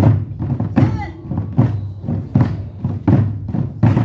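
Korean drums of a Goguryeo drum ensemble struck in a steady beat: a deep, heavy stroke a little more than once a second, with lighter hits between the strokes.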